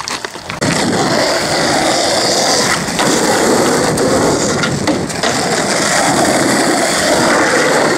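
Skateboard wheels rolling over rough asphalt: a loud, steady rumble that starts suddenly about half a second in, with a few sharp clacks along the way.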